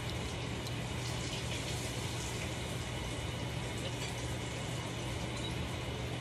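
Steady background hiss with a constant low hum.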